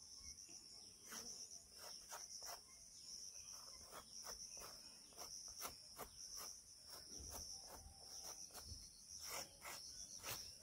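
Crickets chirping faintly and steadily, with scattered light clicks and taps throughout.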